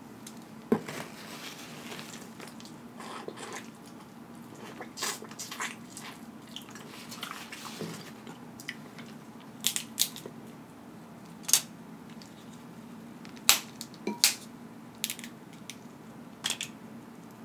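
Crab leg shells being cracked and broken apart by hand: a series of sharp, irregular cracks and snaps, the loudest about two-thirds of the way through, with softer rustles as the meat is pulled from the shell.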